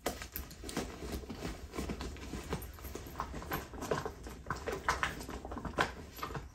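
A hand rummaging inside a canvas bag: irregular soft rustles and small clicks as the items in it shift and knock together.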